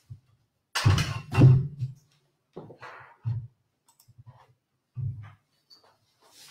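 Irregular knocks, bumps and clicks of a framed painting being carried and set in place.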